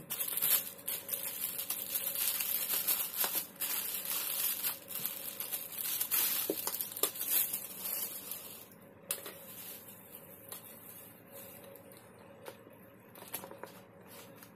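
Thin clear plastic bag crinkling and rustling as hands unwrap a doll and slide it out. The crinkling stops a little over halfway through, leaving quieter handling with a few light taps.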